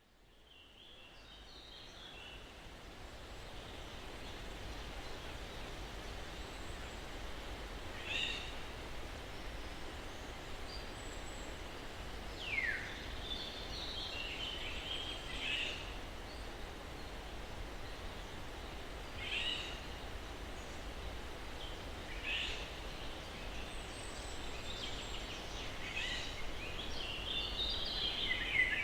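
Steady breeze rustling through trees, with scattered bird chirps and one downward-sliding call. It fades in from silence over the first few seconds.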